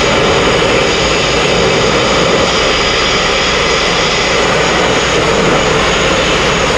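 Sandblasting nozzle blasting abrasive grit at a narrowboat's steel hull to strip two-pack epoxy paint: a loud, steady rush of air and grit. The blast pot is running low on media.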